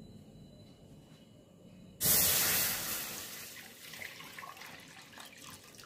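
Milk poured from a plastic container into an aluminium kadai on the stove. It starts suddenly about two seconds in, loudest at first, and the splashing fades away over the next few seconds.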